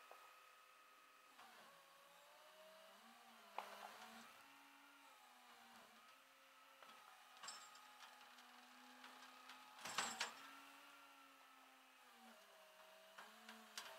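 Rollback tow truck's hydraulic winch pulling a minivan up the tilted bed: a faint, steady mechanical whine that dips and rises in pitch. A sharp clank comes about three and a half seconds in and a louder rattle about ten seconds in.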